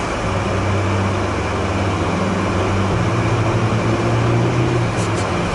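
A vehicle's engine running steadily under a wash of noise, its low hum stepping up in pitch about halfway through.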